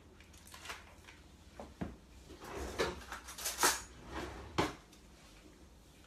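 Kitchen drawer being opened and shut: a handful of sharp knocks and clatters, the loudest about three and a half seconds in.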